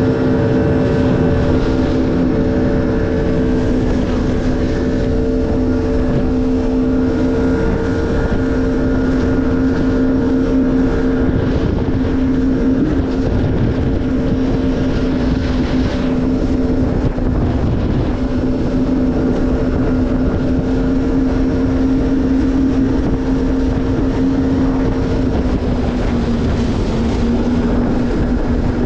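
Jet ski engine running steadily at cruising speed over a dense rush of noise, its pitch dipping slightly near the end.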